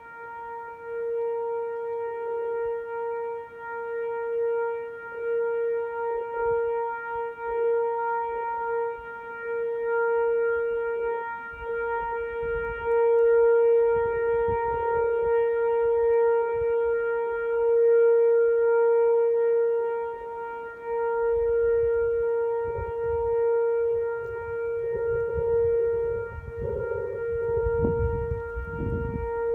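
Whelen Vortex R4 outdoor warning siren sounding a steady, unchanging tone that swells and fades in loudness as it sweeps around. Low rumbling noise joins in for the last several seconds.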